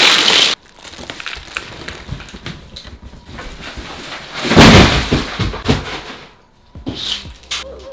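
Cardboard shipping boxes being shoved, lifted and knocked about on a table, scraping and thumping, with a loud crash about halfway through.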